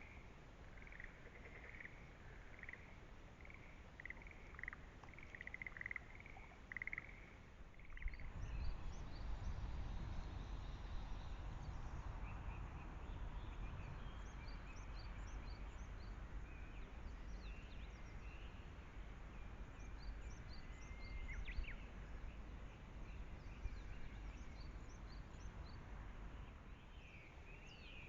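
Rice-paddy outdoor ambience: a run of short, repeated animal calls for the first several seconds. About eight seconds in a low rumble comes in, with faint high chirps over it, and the calls return near the end.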